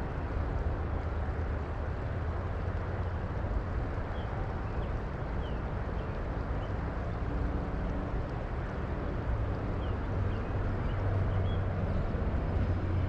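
Steady rushing of a creek running high and fast after heavy rain.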